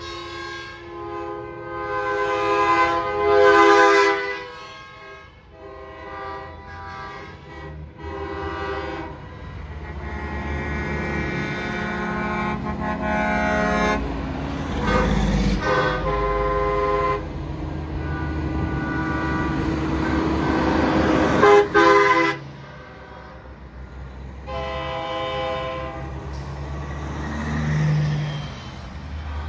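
Semi-truck air horns blasting again and again as the trucks pass, in short and long blasts, the longest held for about six seconds. The low rumble of diesel truck engines runs underneath.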